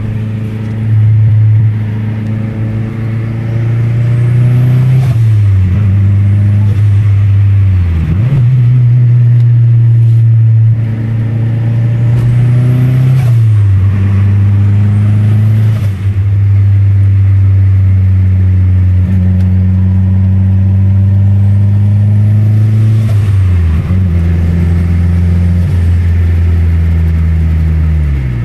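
Mazdaspeed 6's turbocharged 2.3-litre four-cylinder pulling through the gears, heard from inside the cabin: the engine note climbs, then drops sharply at each upshift, about five times.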